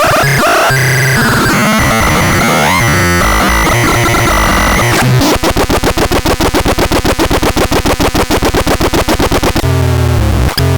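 ASMAR C1002TN sound demo: harsh electronic noise with glitchy, shifting synthesized tones. About five seconds in it turns into a fast, even pulsing buzz, about nine pulses a second, which gives way to noise again near the end.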